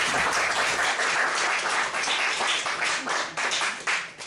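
Theatre audience applauding, dense clapping that thins out and fades near the end.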